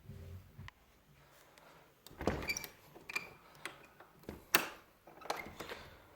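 A cardboard boot box being handled and opened: a series of short scrapes, knocks and rustles, loudest about halfway through.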